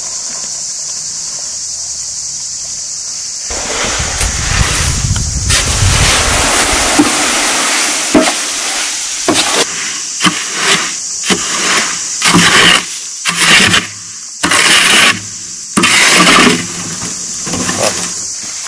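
A loaded wheelbarrow rolling with a low rumble, then soil pouring out of its tipped tray onto a heap. After that a shovel scrapes the rest of the soil out of the tray in a series of short, harsh strokes, four of them loud near the end. A steady high insect drone runs underneath.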